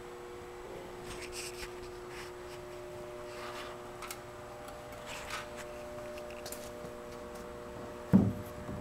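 Steady hum of a few held tones, with faint rustling handling noises scattered through, and one dull thump near the end that is the loudest sound.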